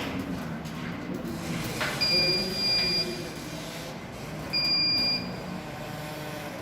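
Arduino alarm's piezo buzzer beeping twice, first for about a second, then more briefly, in a steady high tone: the alarm triggered by its ultrasonic sensor detecting something in range.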